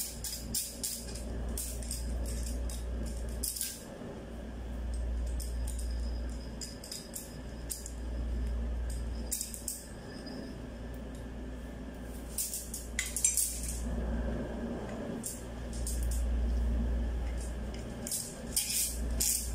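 Steel parts of a refrigerant-line flaring tool clinking and clicking irregularly as it is handled and set on copper tubing. A steady low hum runs underneath.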